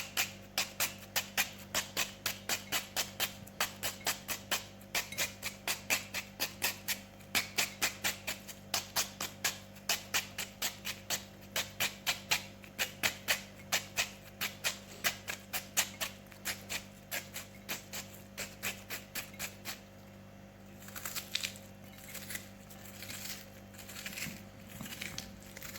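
Kitchen knife cutting a red onion by hand, quick regular strokes about four a second. About twenty seconds in the strokes pause, then come softer and uneven.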